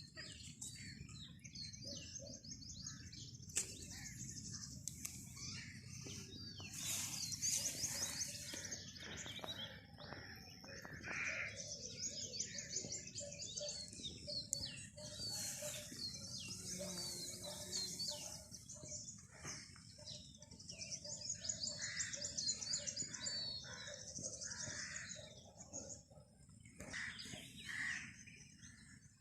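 Several songbirds chirping and singing at once, with rapid high trills and short calls overlapping throughout.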